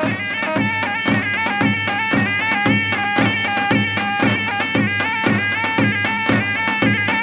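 Traditional folk music: a wind instrument playing an ornamented melody over a steady, regular drum beat.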